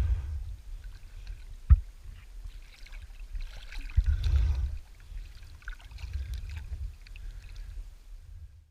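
Water rushing and sloshing past a sailing boat, with wind rumbling on the microphone. Two sharp knocks stand out, at just under 2 seconds and about 4 seconds in.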